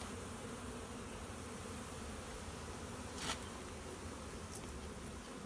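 A swarm of honeybees buzzing steadily all around, with one sharp click about three seconds in.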